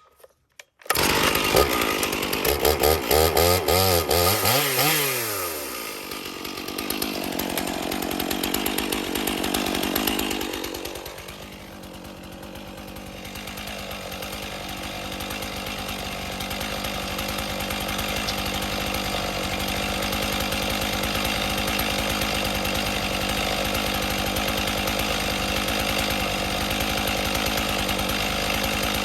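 Gas chainsaw starting up about a second in, revving unevenly for a few seconds with its pitch rising and falling, then running steadily at speed.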